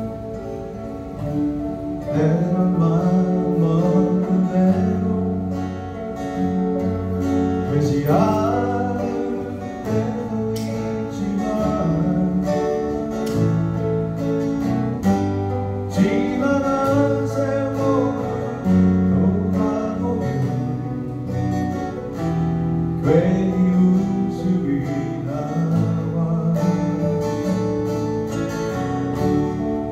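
Live acoustic band music: two acoustic guitars strumming over electric bass and keyboard, with a stepping bass line under held chords.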